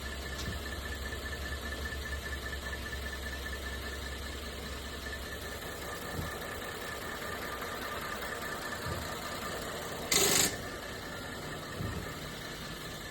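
Car engine idling during a jump-start, with a steady low rumble that stops about five seconds in. A short, loud burst of noise comes a little after ten seconds.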